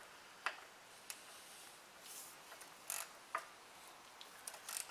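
A socket wrench working bolts on the front gear housing of a bare Cummins 5.9 12-valve engine block: a few faint, scattered ratchet clicks and metal clinks, with a small cluster of clicks near the end.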